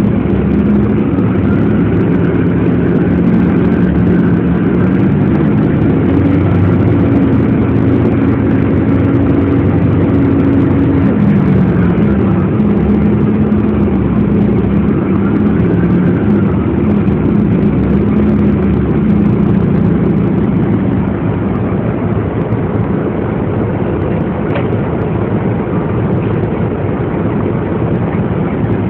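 Steady riding noise inside a moving transit vehicle: a loud rumble with a low motor hum that steps up and down in pitch a few times, easing a little past the two-thirds mark.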